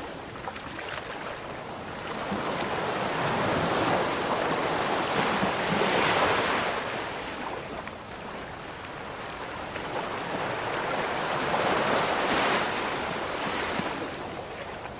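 Ocean surf: waves rolling in and washing back, the rush of water swelling up twice and easing off in between.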